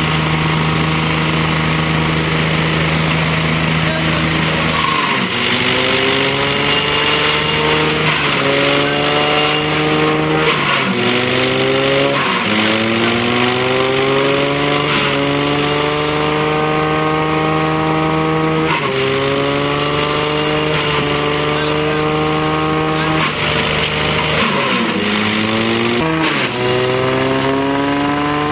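Tractor-driven banana waste shredder running with the tractor engine, its pitch dropping sharply and then climbing back up every few seconds as banana stems are fed in and the machine bogs under the load and recovers.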